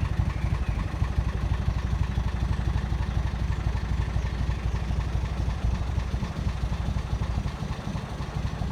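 A narrowboat's engine running steadily with a fast, even chugging beat.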